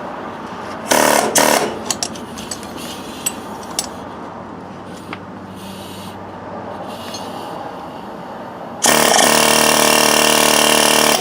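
Pneumatic air tool on compressed air: two short blips about a second in, then running steadily for a couple of seconds near the end before stopping suddenly.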